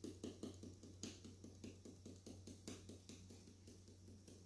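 Faint, rapid rattle of a small spice shaker of chili pepper being shaken over raw pork ribs on aluminium foil, about five or six shakes a second, a couple of them louder.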